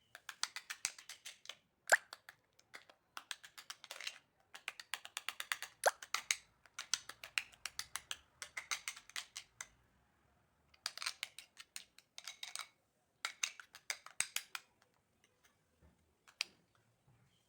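A spoon clicking rapidly against a bowl as a thick, creamy paste is whisked, in bursts of a second or two with short pauses between them.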